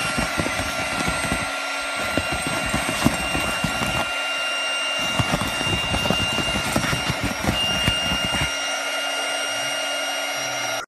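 A Boston terrier's paws digging and scrabbling on an inflated air mattress, making many irregular soft thumps and scrapes on the vinyl, over a steady mechanical hum with a high whine.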